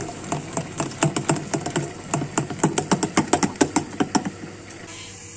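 A white utensil stirring thick yogurt in a glass bowl, clicking and knocking against the glass several times a second; the clicking stops about four seconds in.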